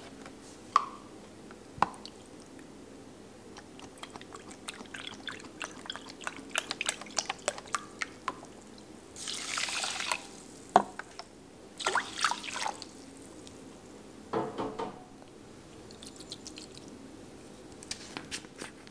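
Chicken broth poured from a carton into a stainless steel pot of quinoa, splashing in a few short pours, among scattered drips and small ticks. A few sharp clicks stand out, two of them in the first couple of seconds.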